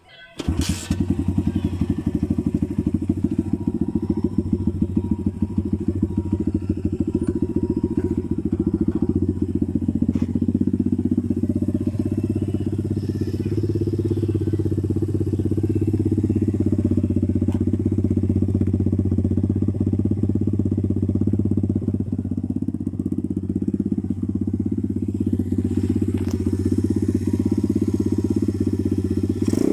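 Kayo KRZ 125 pit bike's single-cylinder four-stroke engine starting about half a second in, then idling steadily.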